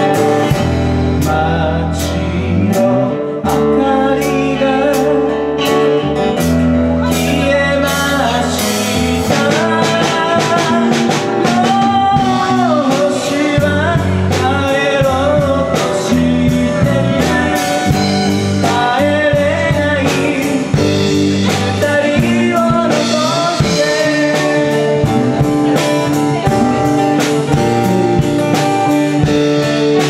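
Live band playing a folk-rock song: acoustic guitar, electric guitar, bass and drums, with a sung melody over them.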